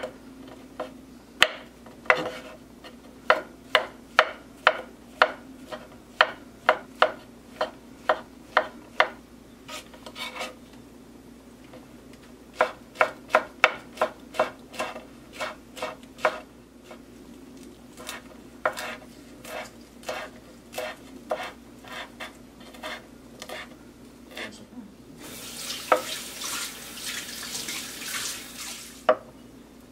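Serrated kitchen knife chopping mushrooms and a green chili on a bamboo cutting board: sharp knocks of the blade against the board, about two a second, in runs with short pauses. Near the end, a few seconds of steady hissing noise.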